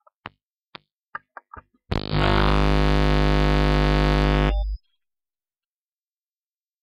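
A scatter of sharp clicks, then a loud, steady, distorted electronic buzz of about three seconds that cuts off abruptly.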